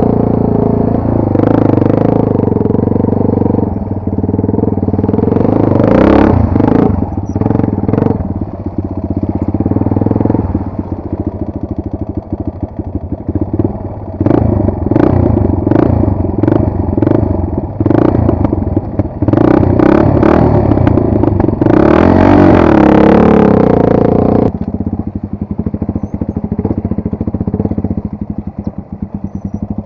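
Motorcycle engine running hard and revved in repeated surges that rise and ease, with many short sharp clattering knocks through the middle. It settles to a steadier, quieter run near the end.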